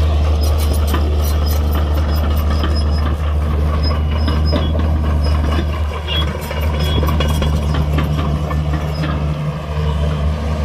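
Heavy diesel machinery running steadily with a low engine drone, overlaid with many short metallic clicks and clanks that ease off near the end.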